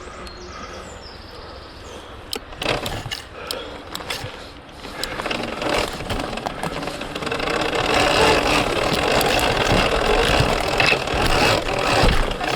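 Surron Ultra Bee electric dirt bike ridden hard over wet roots and mud: sharp knocks and clatter from the chassis and suspension with a rushing, rough noise of tyres and drive that builds from about five seconds in.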